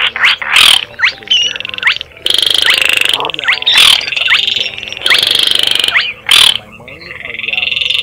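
Baillon's crake calls played as a bird-trapping lure: a run of rapid dry clicks, short rising notes, then long, high rattling trills, the last one rising near the end. Frogs croak underneath.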